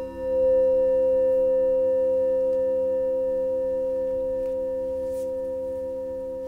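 Singing bowls ringing: one strong, pure, steady tone with fainter higher overtones above it and a lower tone that wavers about four times a second. The ringing fades slowly.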